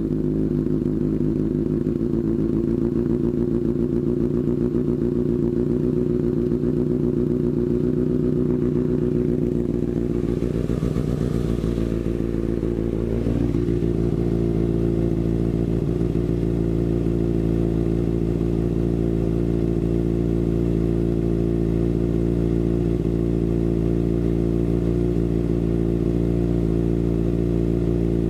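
Kawasaki ZX-6R 636 inline-four idling steadily through a RACEFIT slip-on exhaust, its note shifting a little about twelve seconds in.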